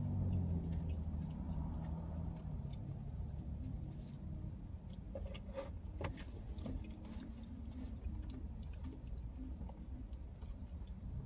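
Close-up chewing of pizza, with small wet mouth clicks and a few sharper ticks. A low hum fades out over the first two seconds.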